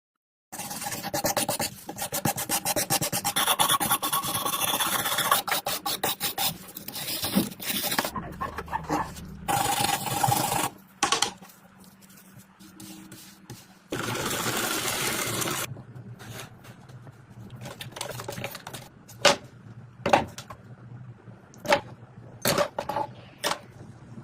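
Hand rubbing and scraping on the restored WWI binoculars' parts, in quick repeated strokes for about the first ten seconds. A steadier stretch of rubbing follows about fourteen seconds in, then scattered sharp clicks and light taps.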